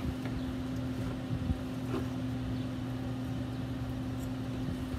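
A steady low mechanical hum holding two even tones, with a couple of faint knocks from a knife cutting through smoked ribs onto a wooden cutting board about a second and a half and two seconds in.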